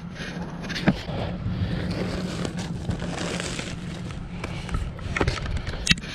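Wind rumbling on the microphone over a steady outdoor hum, with a few sharp knocks and rustles as a landing net and a fish measuring board are handled. The loudest knocks come about a second in and twice near the end.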